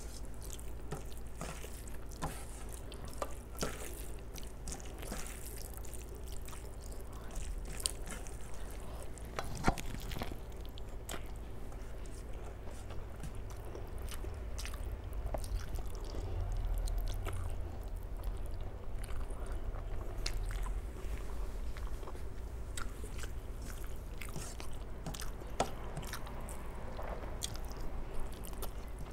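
Close-miked chewing and wet mouth sounds of a person eating rice and curry by hand, with fingers squishing rice against a steel plate. Small scattered clicks throughout, one sharper click about ten seconds in, over a low steady hum.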